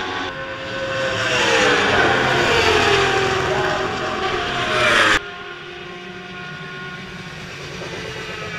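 Racing superbike engines revving loudly, their pitch falling and rising. About five seconds in the sound cuts off abruptly to a quieter, steady engine drone.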